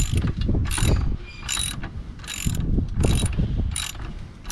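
A socket ratchet wrench clicking in short bursts, about one stroke every second, as the four chain-adjustment bolts on a Kawasaki KFX 400 quad are tightened down.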